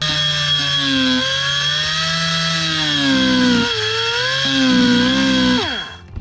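Hand-held power cutting tool running at high speed, its whine wavering in pitch as the bit cuts a slot through the cooler's plastic wall, then winding down near the end.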